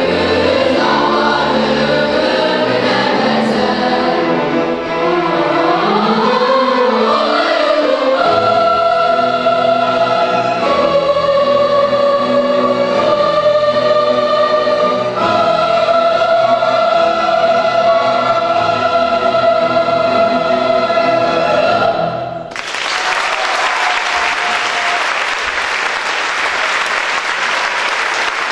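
Children's choir singing with a string orchestra of violins and cellos, the melody moving and then settling into long held chords. The music stops after about 22 seconds and the audience breaks into applause.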